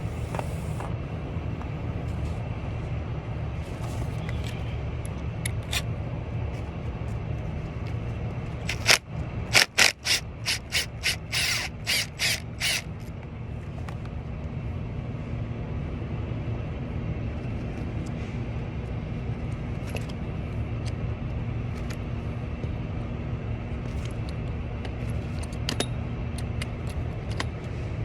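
Tools working on a Delco Remy 39MT starter solenoid: about nine seconds in, a run of about a dozen sharp metallic clacks, roughly three a second, over a steady low hum.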